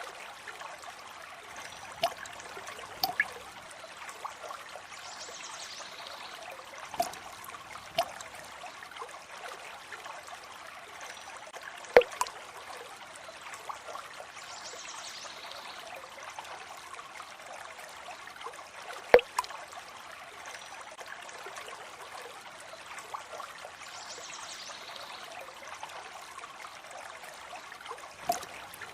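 Water trickling steadily, with scattered sharp, separate drips landing, the two loudest about 12 and 19 seconds in.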